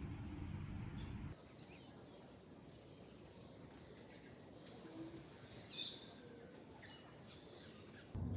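Outdoor ambience: a steady, high-pitched insect chorus with scattered short bird chirps. It begins about a second in, where a low rumble cuts off.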